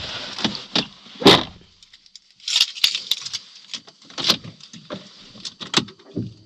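Handling noises: rustling with scattered clicks and taps, and one louder knock about a second in.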